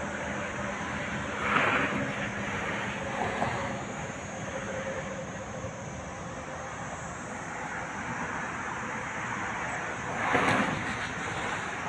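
Steady outdoor rumble of wind and distant traffic, with two brief louder rushes of wind on the microphone, about a second and a half in and near the end.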